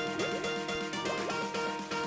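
Background music with a steady beat and short sliding notes.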